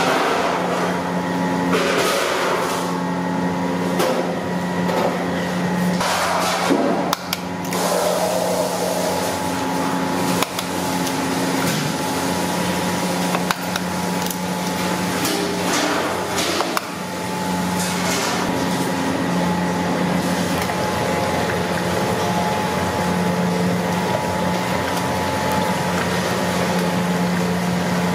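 A steady mechanical hum, like a motor running, with a low drone and several fixed tones, broken abruptly a few times.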